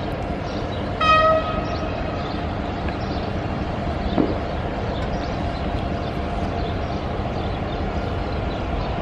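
Railway locomotive running at a standstill with a steady hum and rumble; about a second in, a short horn toot.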